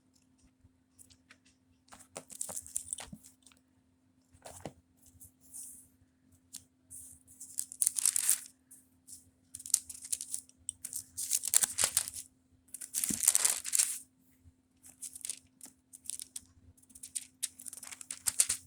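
Paper pages rustling and being flipped over in a series of short, crisp bursts, the sound of leafing through a book to find a passage, over a faint steady hum.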